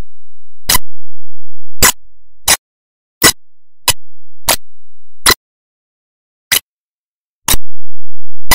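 About ten sharp clicks at irregular intervals, roughly one a second, with silence between them: digital pops in an otherwise silent soundtrack.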